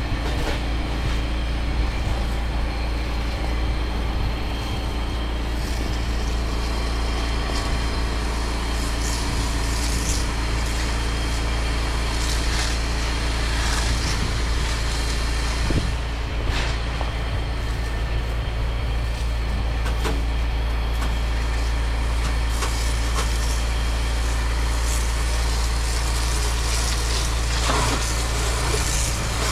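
Pressure-washing equipment's engine running steadily, with a few brief louder hissing bursts, typical of water spray, coming and going.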